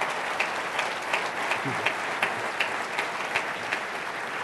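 Audience applauding: a dense spread of hand claps at the close of a speech.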